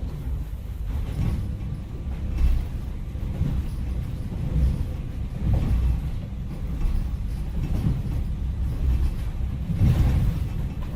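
Deep, low rumbling ambience from an added sound-effect track, swelling and easing irregularly every second or two.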